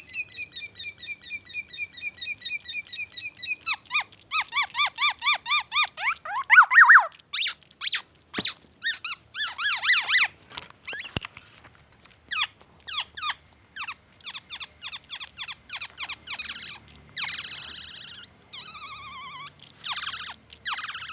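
Black-naped oriole singing a long, fast, varied song of rapid repeated notes, quick sweeping notes and trills, in phrases copied from the white-rumped shama.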